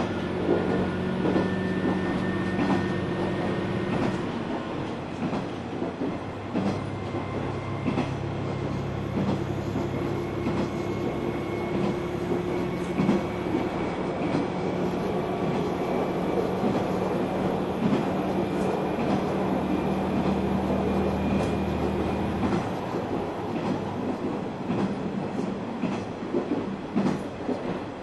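KiHa 120 diesel railcar's engine running under power, heard from inside the car, with a faint whine that rises slowly as the train gathers speed and clicks of wheels over rail joints. About 22 seconds in, the low engine drone drops away sharply.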